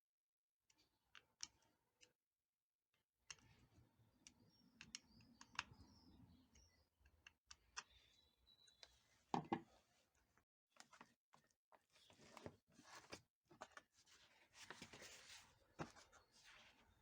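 Faint, scattered clicks and light handling noises, with one louder soft knock about halfway through.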